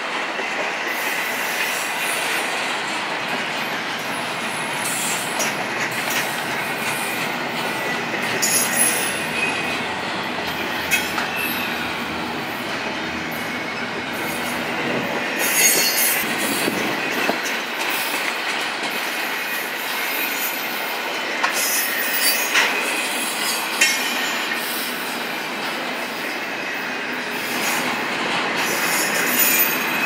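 Double-stack intermodal freight cars rolling past on steel rails: a steady rumble and rattle of wheels on track, with brief high-pitched wheel squeals and clanks at intervals.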